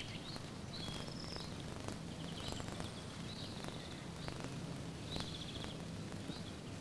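Faint outdoor ambience with scattered short bird chirps and trills, over a steady low hum.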